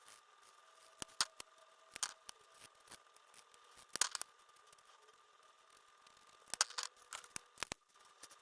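Cash and cash-stuffing supplies being handled: about a dozen light clicks and taps, scattered and mostly in pairs, over a faint steady thin tone.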